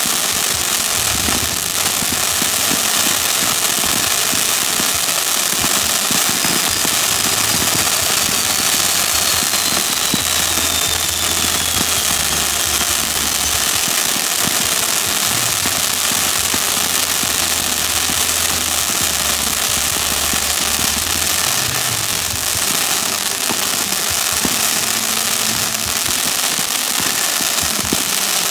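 Fireworks grand finale: a dense, unbroken barrage of crackling and popping, with a descending whistle from about six to thirteen seconds in. A steady low rumble runs underneath.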